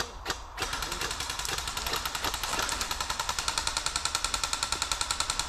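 Airsoft gun firing: a few single shots, then from about half a second in a sustained full-auto rattle of rapid, evenly spaced shots.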